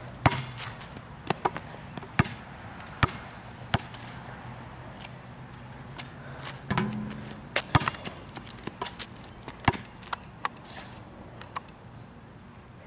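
Basketball bouncing on a concrete pad: a string of sharp, unevenly spaced thuds as the ball is shot, lands and bounces.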